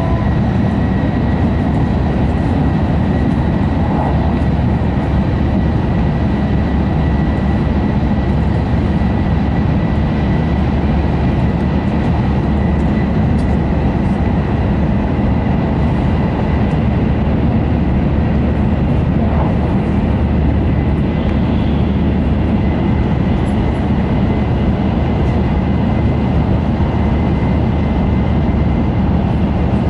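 Steady running noise inside the passenger cabin of a Tohoku Shinkansen Hayabusa train at speed: a continuous deep rumble from the running gear and track, with a thin steady high tone above it.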